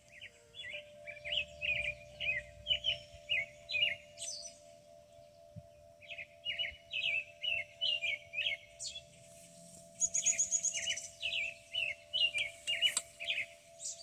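Songbirds singing in the tree canopy. One bird sings long runs of quick, varied chirping notes, pausing for about two seconds midway, and a higher, faster trill comes in about ten seconds in.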